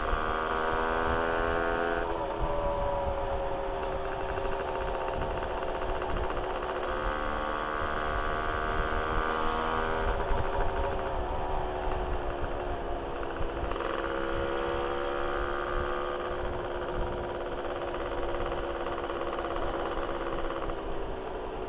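Modified Yamaha V80 two-stroke engine, fitted with a Kawasaki Ninja R cylinder block and head and an aftermarket exhaust, running under way, its pitch changing every few seconds as the rider speeds up and eases off. Wind rumbles on the microphone underneath.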